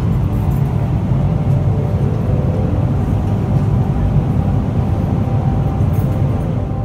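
Steady low drone of a Boeing 777-300ER cabin in flight: airflow and engine noise heard from a seat inside the cabin.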